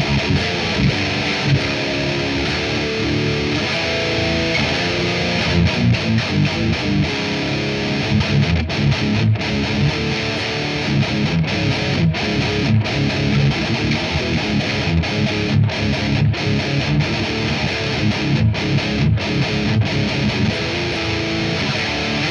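Distorted high-gain electric guitar through a Mesa Triple Rectifier amp, playing heavy metal riffs with many short, sharp stops between the hits.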